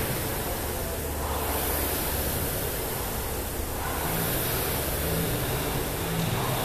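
Rowing machine's air flywheel whooshing, swelling and fading with each pull a couple of seconds apart.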